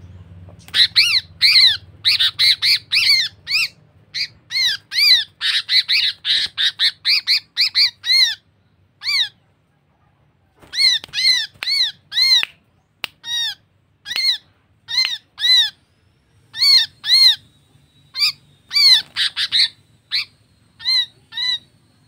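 Sooty-headed bulbul held in the hand giving short harsh squawks, the distress calls of a handled bird: quick runs of several a second at first, then after a brief pause about ten seconds in, more spaced single calls.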